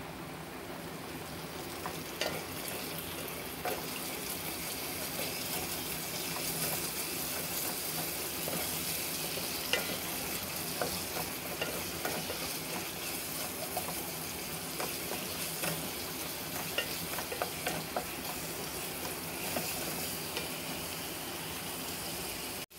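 Ridge gourd and egg stir-fry sizzling in oil in a pan, the gourd's water cooked off, while a wooden spatula stirs it with scattered scrapes and taps against the pan.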